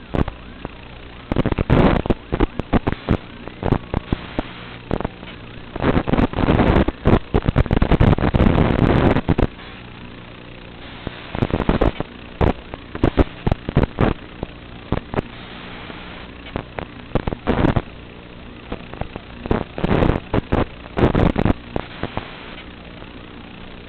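Racing quadcopter's Emax 2600 kV brushless motors surging in irregular loud bursts as the throttle is punched and chopped, over a steady low hum.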